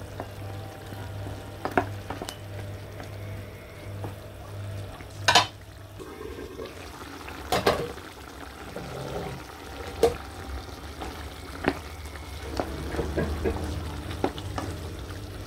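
Chicken wings simmering and sizzling in a pan of soy, oyster-sauce and cola sauce as it boils down to reduce. A utensil knocks against the pan now and then, most sharply twice around the middle, as the wings are stirred. A steady low hum runs under it all.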